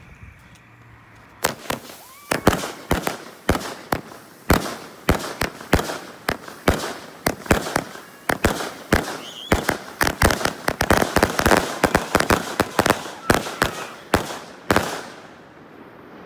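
A chain-fused sequence of consumer ground fireworks, strobe mines and strobe items, going off: a rapid series of sharp pops and bangs, several a second, that starts about a second and a half in, grows denser in the middle and stops abruptly near the end.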